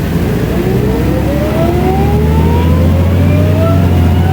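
Mercedes-Benz O500U city bus with a ZF automatic gearbox accelerating hard. The engine note grows louder, with a whine that climbs steadily in pitch.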